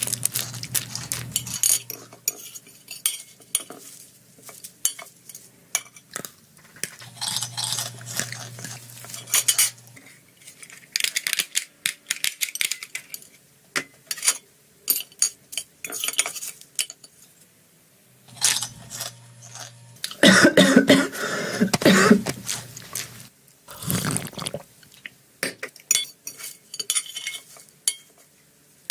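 Metal cutlery clinking and scraping against a plate during a meal, in many short irregular strokes, with a denser, louder run of scraping about twenty seconds in.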